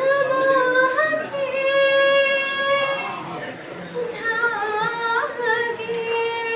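A woman singing unaccompanied, holding two long, steady notes with short slides between pitches.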